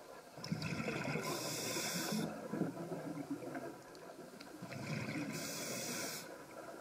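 A scuba diver breathing through a regulator underwater: two breaths, each a hiss of air with a low bubbling rumble.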